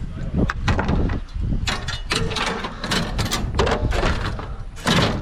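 A run of knocks, rattles and clatter as hard objects are handled and set down, with the loudest bang near the end, over a low wind-like rumble.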